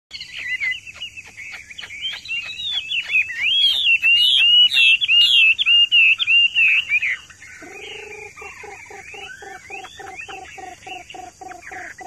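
Caged Chinese hwamei singing a loud, fast run of rich whistled phrases, the notes sweeping up and down in quick succession. About seven seconds in, the song gives way to a quieter series of low, evenly repeated notes at about three a second.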